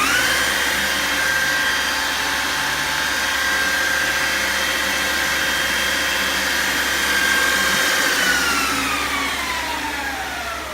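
Promac stand-mounted metalworking belt grinder with a 2.25 kW, 400 V motor, switched on: it comes up to speed almost at once and runs with a steady whine. About eight seconds in it is switched off and the whine falls in pitch as the motor and belt coast down.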